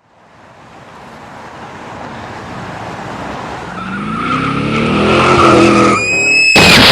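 Car crash: an engine grows steadily louder as a car speeds closer, its tyres screech, and a loud crash of impact hits about half a second before the end.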